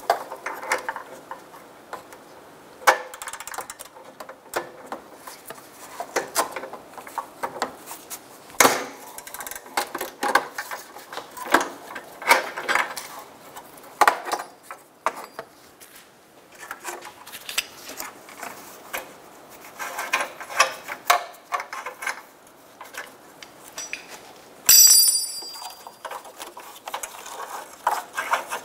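A 22 mm open-end wrench breaking free the upstream oxygen sensor in a rusty exhaust manifold, after which the sensor is turned out: a run of irregular metal clicks, clinks and scrapes. One loud ringing metallic clink comes near the end.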